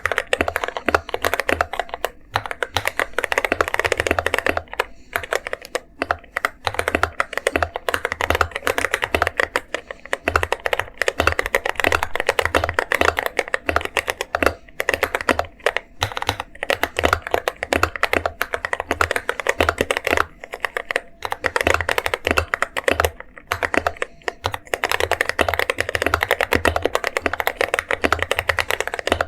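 Continuous fast typing on an Akko MonsGeek M1 mechanical keyboard with linear CS Jelly Black switches, tape-modded and with lubed stabilizers, giving a thocky sound. It is a dense stream of keystrokes with short pauses every few seconds.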